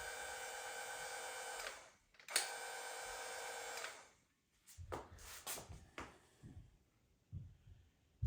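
Small electric gear motors of a battery-powered caulking gun with a self-propelled wheel attachment whirring steadily in two runs of about two seconds each as the trigger is pressed and released. A few short clicks and knocks follow from handling the gun.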